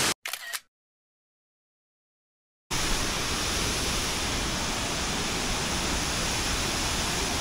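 Steady rushing of Wachirathan Waterfall's heavy falling water, cut off abruptly a moment in and silent for about two and a half seconds before the rushing returns.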